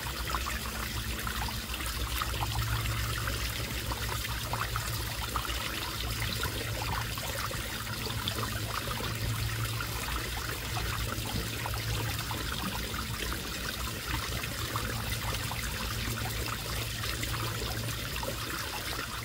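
Steady trickling of running water, with a low hum underneath.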